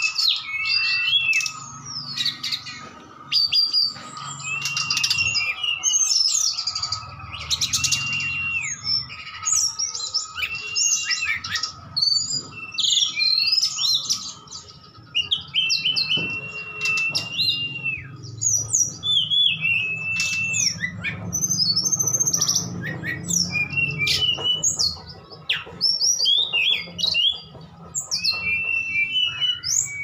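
Two caged flycatchers, an SRDC and a tledekan gunung (hill blue flycatcher), singing against each other in a long duel: a dense stream of quick chirps, trills and sliding whistles, with a flat whistled note repeated every few seconds that drops at its end. A faint steady hum runs underneath.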